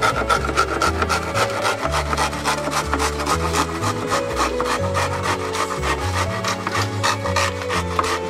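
Hand saw cutting through bamboo in quick, steady strokes, over background music with a bass line that steps from note to note.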